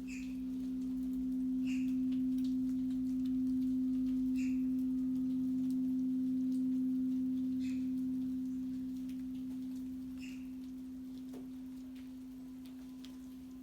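Quartz crystal singing bowl ringing one steady sustained tone, with a weaker lower tone beneath it. It swells over the first few seconds and then slowly fades. Short high chirps come every two to three seconds over it.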